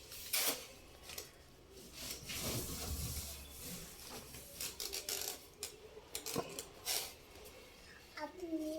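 Scattered light clicks, knocks and rubbing of things being handled, with a low rumble a couple of seconds in.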